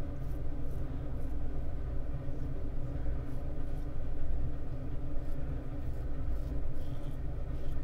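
Double-edge safety razor scraping through lathered stubble in short strokes about half a second apart, faint over a steady low rumble.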